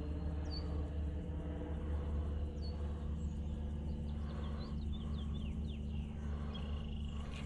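Small birds chirping: a few short high chirps early on, then a quick cluster of them in the middle, over a steady low outdoor rumble.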